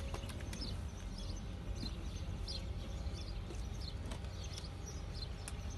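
Birds chirping, many short high calls scattered through, over a steady low rumble.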